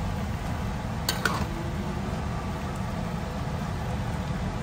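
Metal ladle stirring pork and salted radish in a wok, clinking twice against the pan about a second in, over a steady low rumble.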